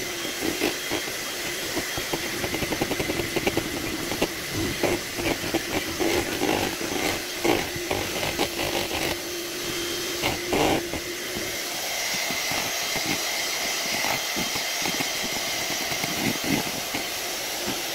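Electric hand mixer running steadily, its beaters whipping sponge cake batter in a bowl. For the first ten seconds or so the beaters clatter irregularly against the bowl, then the sound turns steadier.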